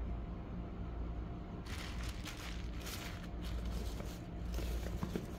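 Packaging handled by hand: irregular rustling and crinkling that starts about two seconds in, with a few sharper crackles, over a low steady hum.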